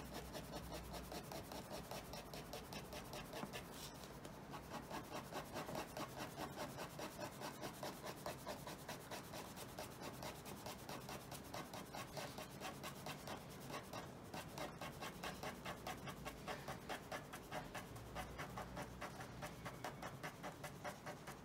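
Ballpoint pen shading on paper clipped to a board: a steady run of quick, even back-and-forth scratching strokes, several a second.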